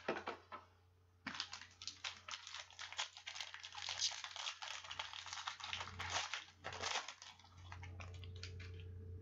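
Foil wrapper of a 2016 Panini Prizm football card pack crinkling as it is torn open and pulled off by hand: a dense run of crackling that starts about a second in and stops about seven seconds in, after a few light clicks.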